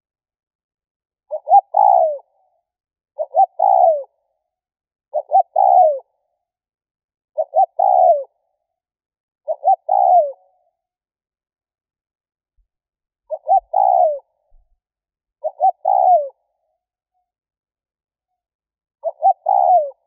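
Spotted dove cooing: eight phrases, each a short note followed by a longer one that falls in pitch at the end, repeated about every two seconds with one longer pause midway. It is the cooing of a caged decoy dove, used to lure wild doves.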